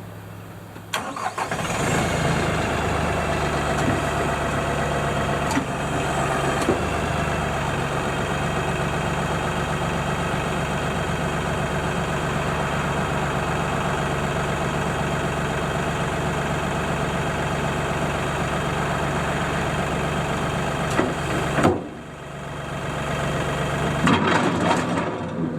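LS MT240e compact tractor's diesel engine running steadily while brush hogging, starting up about a second in. Near the end it drops sharply and builds back up over a couple of seconds.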